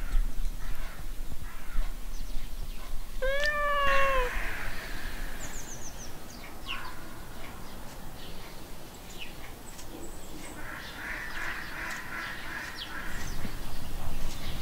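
A domestic cat meows once, a single call of about a second that falls slightly in pitch, a few seconds in. Faint short high chirps follow later.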